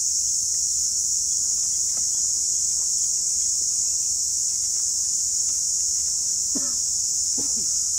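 Steady, high-pitched drone of insects in the surrounding grass and scrub, continuous and even.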